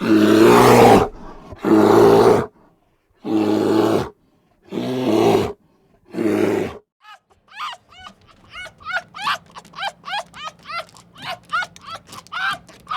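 Animal calls: five loud calls, each about a second long, then from about seven seconds in a quick run of many short, high chirps.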